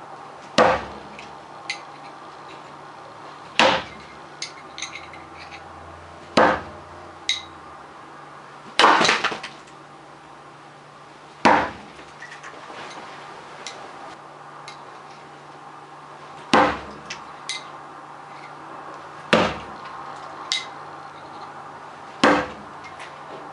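Steel bo-shuriken throwing spikes striking a target one after another, a sharp impact with a short ring about every three seconds, one pair close together and a longer gap near the middle. Fainter metallic clinks fall between the strikes.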